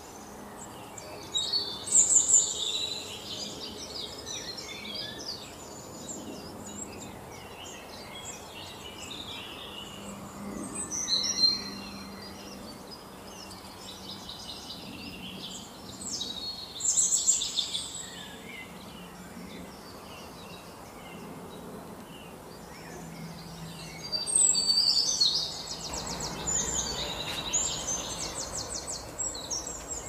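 Songbirds singing in four short, bright bursts of high chirps and whistles, the longest near the end with a fast trill, over a steady background hiss.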